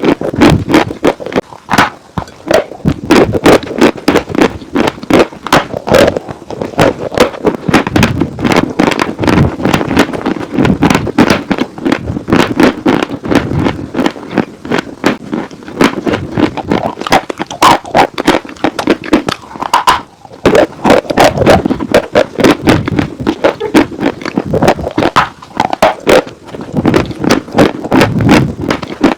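Dry chalk and clay being bitten and chewed close to the microphone: a continuous run of crisp crunches, several a second.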